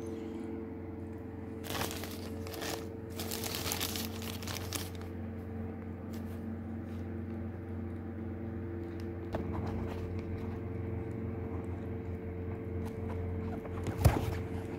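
Clear plastic bag covering a pot of seedlings crinkling as it is handled, in short rustles about two seconds in and again from about three to five seconds, over a steady low hum. A single knock near the end.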